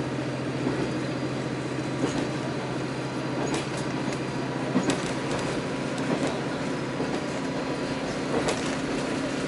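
Cabin sound of a diesel railcar running along the line: a steady engine and rolling drone, with scattered clicks as the wheels pass rail joints.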